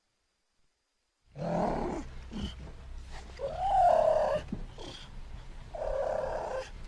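Cougar calling: three calls after a second of silence, the loudest about four seconds in, rising and then falling in pitch.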